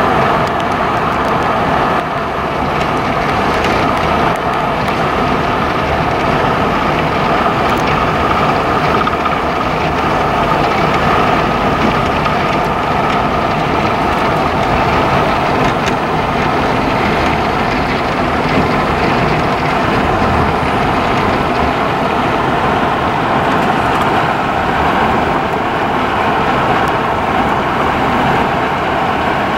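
Steady tyre and engine noise of a vehicle cruising at highway speed, an even rush with no separate events.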